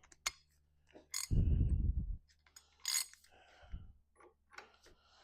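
A ratchet wrench doing the final tightening of a hydraulic cylinder's piston nut: sharp metallic clicks and clinks, with a louder low rumble of about a second near the middle.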